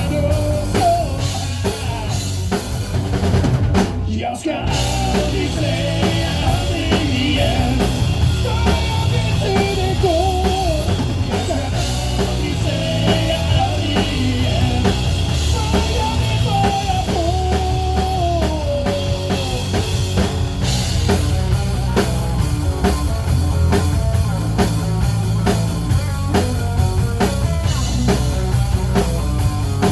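A band playing a rock song. Drum kit and bass drive it, a melodic lead line runs on top, and there is a brief drop about four seconds in.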